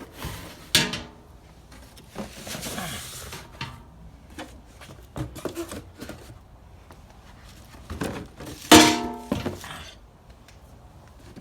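Knocks, clatters and a rustling scrape of things being handled and moved, with two louder clanks that ring briefly, about a second in and near the end.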